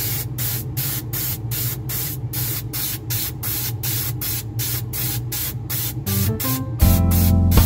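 Airbrush spraying white paint onto a 3D-printed plastic lantern shade: a hiss of air and paint that pulses about four times a second. Background music with pitched notes comes in near the end and becomes the loudest sound.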